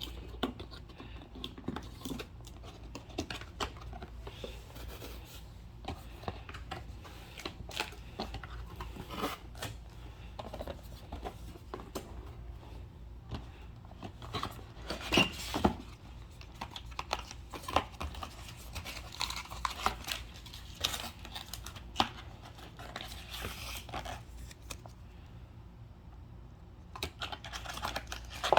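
Packaging of a boxed portable speaker being opened by hand: irregular tearing, scraping and crinkling with scattered clicks, loudest in a short stretch about halfway through, over a low steady hum.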